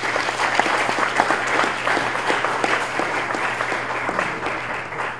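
Audience applauding: many hands clapping together, tapering off near the end.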